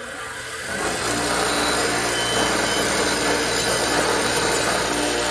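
An electric power tool spins up over the first second, then runs steadily with a rough scraping noise as rust is cleaned off a lawn mower blade.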